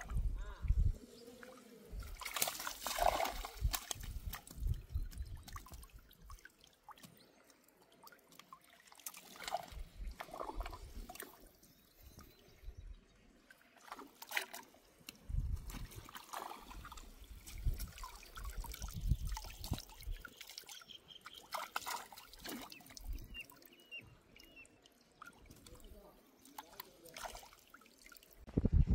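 Water trickling and splashing in irregular bursts, with low thumps scattered through.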